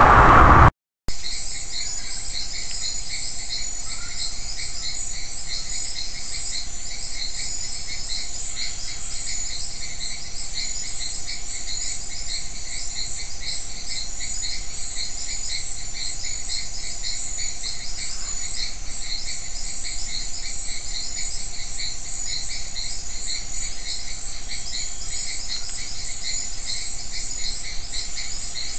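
Steady chorus of crickets and other insects, a fast pulsing trill in several high pitch bands. It is preceded by a loud rush of noise that cuts off abruptly in the first second.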